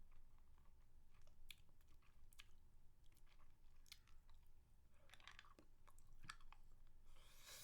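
Faint, close-miked mouth sounds of someone eating a spicy mango lollipop: scattered sharp clicks and smacks, with longer wet sucking sounds about five seconds in and again near the end.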